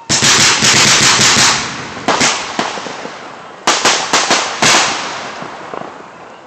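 Aerial fireworks bursting: a sudden rapid volley of bangs and crackling just after the start, a few more bangs about two seconds in, and another cluster of bangs around four seconds in, each volley fading out afterwards.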